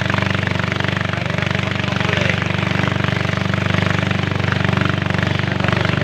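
Engine of a small motorized boat running steadily under way at an even speed, with a fast, regular pulse.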